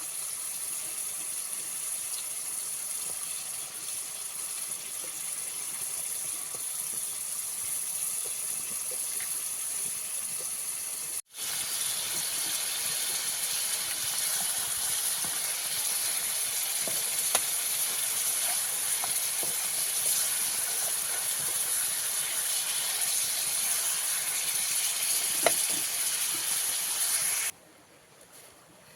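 Food cooking in a pan over the fire: a steady sizzling hiss with scattered small pops. It breaks off for a moment about eleven seconds in, comes back louder, and stops abruptly near the end.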